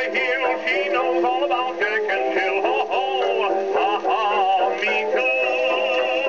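Edison A250 phonograph playing a record: a singer with strong vibrato over accompaniment, thin and narrow-toned with no deep bass, as from an acoustic horn reproducer.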